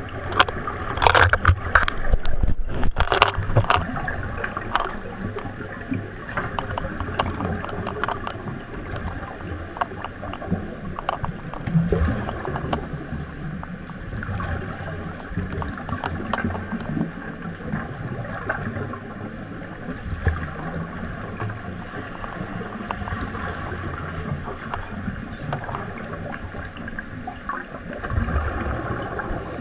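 Underwater sound in a pool: scuba divers' exhaled bubbles gurgling and crackling over a muffled rumble, with a louder run of bubbling about one to three seconds in.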